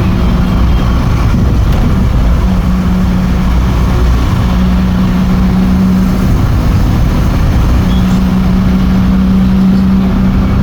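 Motor vehicle engine running steadily: a constant low rumble with a steady hum that fades out and returns twice.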